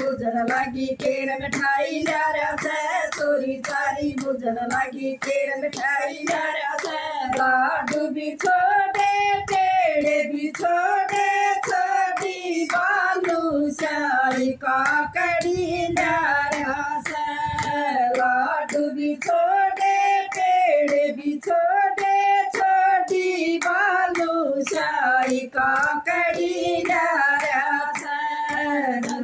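Three women singing a song together without instruments, clapping their hands to a steady beat.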